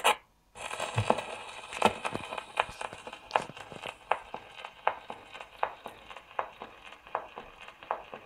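Hiss and crackle from the lead-in groove of a shellac 78 rpm record on a His Master's Voice 102 wind-up portable gramophone, with a sharp click about every three quarters of a second, once per turn of the disc. It follows a short burst of noise at the very start, before the music begins.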